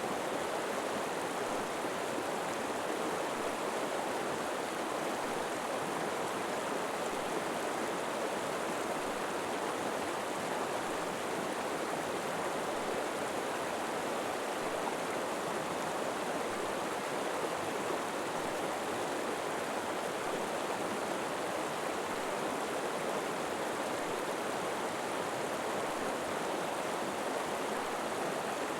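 River water flowing steadily over rocks: an even, continuous rushing.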